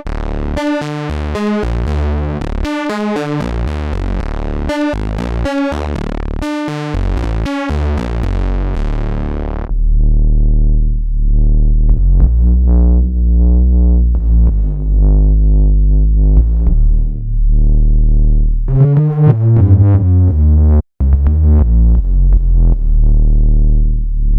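Sampled analog modular synthesizer bass patches playing: for about the first ten seconds a bright, pulsing note pattern chopped into short rhythmic stabs, then a deep synth bass line with heavy low end, which cuts out briefly near the end.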